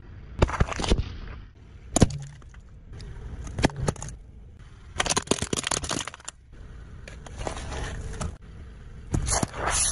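A car tyre crushing a series of objects, including milk cartons and plastic pieces, on asphalt. The sound comes in several separate bursts of cracking and crunching, with one sharp snap about two seconds in.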